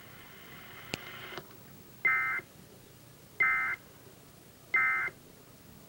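Emergency Alert System end-of-message data signal: three short, identical electronic bursts of digital tones, about 1.3 seconds apart, marking the end of the broadcast flood warning. A faint click sounds about a second before the first burst.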